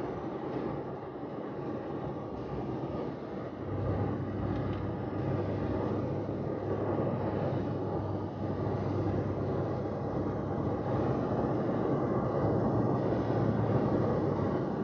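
Steady road and engine noise of a car driving, heard from inside the cabin, with a low hum that gets stronger about four seconds in.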